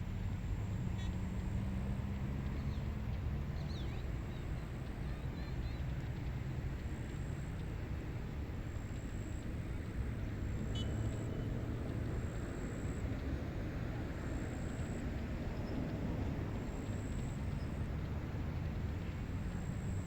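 Wind blowing across an open rice paddy, a steady rushing with a low rumble on the microphone and a faint low drone underneath. A few faint high bird chirps come through now and then.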